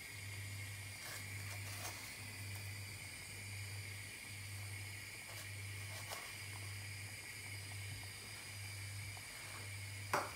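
Steady low hum with an even pulse and a constant faint hiss, broken by a few faint clicks of a spoon against a bowl and a sharper clink near the end.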